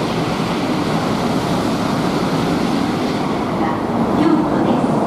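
Steady rushing noise of a Shinkansen train, even throughout with no clear rise or fall.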